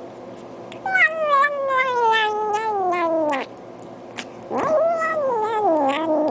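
Domestic cat giving two long, drawn-out yowls. The first slides steadily down in pitch over about two and a half seconds. The second rises and then wavers downward near the end.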